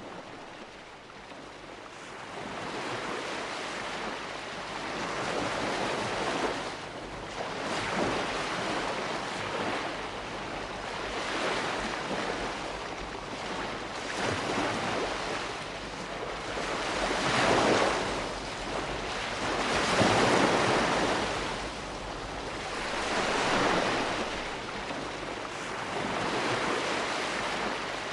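Calm sea wash: small waves washing up and drawing back about every three seconds, fading in over the first couple of seconds.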